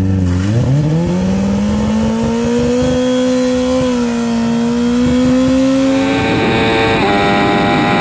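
Sport motorcycle engine revved hard and held at high revs, its pitch creeping slowly upward, then climbing higher with a rougher, hissing edge about six seconds in.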